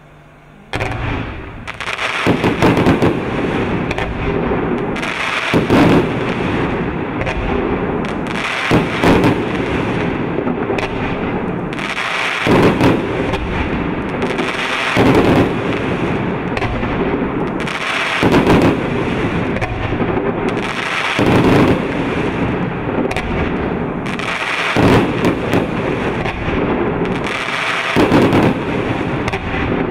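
A 100-shot fan-pattern firework cake with 30 mm tubes firing: a dense, unbroken stream of shots launching and bursting, starting under a second in and swelling louder about every three seconds.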